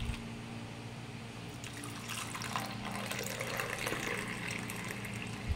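Tea poured in a thin stream from a height into a ceramic cup: a continuous splashing, filling pour that froths as it lands.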